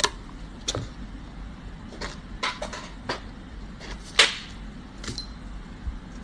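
Scattered light clicks and knocks of small objects being handled and set down on a tabletop, about ten in six seconds, the sharpest about four seconds in, over a low steady hum.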